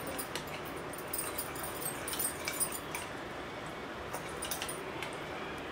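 A metal spoon stirring oil mixed with chilli powder in a small bowl, with faint scattered clinks and scrapes of the spoon against the bowl.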